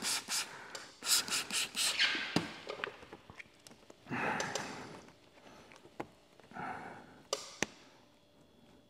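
Trigger spray bottle squirting solution onto paint protection film in a quick run of short hissing sprays in the first two seconds. Softer rubbing of the wet film being worked by hand follows, with a couple of small clicks near the end.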